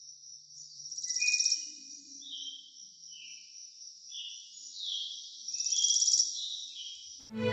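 Outdoor chorus of insects and birds: a steady high-pitched drone with two louder buzzy trills, about a second in and about six seconds in, and short scattered chirps. String music comes in just at the end.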